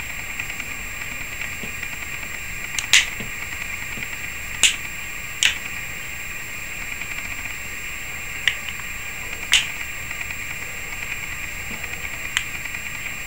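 Six sharp, irregular plastic clicks of a smartphone's back cover snapping onto its clips as it is pressed home around the edges, over a steady hiss.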